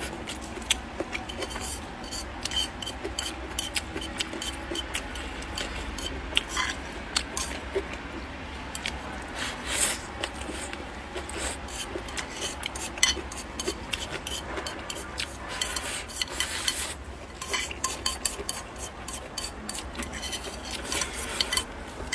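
Chopsticks scraping and clicking against a plate as the last grains of rice are gathered up: many sharp taps, with longer scrapes about ten seconds in and again around sixteen seconds.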